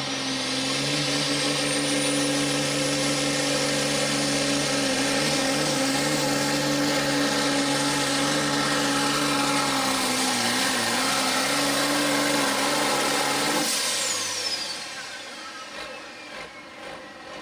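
Turbocharged diesel engine of an International Harvester Pro Farm pulling tractor running at full throttle under heavy load while dragging the sled, with a high turbo whine rising at the start. About 14 seconds in the throttle is cut: the engine note drops off and the turbo whine winds down.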